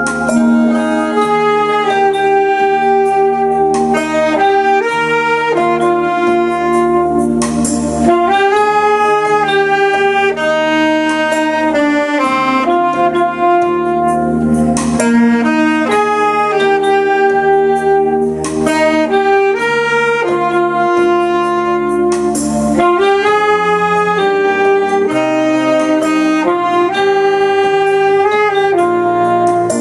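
Saxophone playing a slow melody of held notes over a sustained chordal backing.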